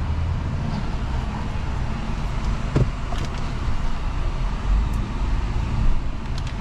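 Cabin noise of a 2017 Hyundai Sonata driving slowly: a steady low engine and road rumble from a car that is running poorly and has no power, with a single sharp click about three seconds in.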